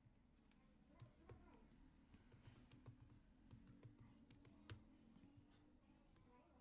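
Faint, irregular clicking of computer keyboard keys being typed, with one louder click about two-thirds of the way through.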